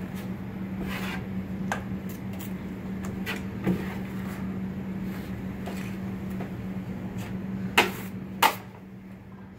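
Six-inch drywall knife scraping joint compound along a taped drywall seam in repeated strokes, over a steady low hum. Near the end come two sharp clacks of the knife against the metal mud pan.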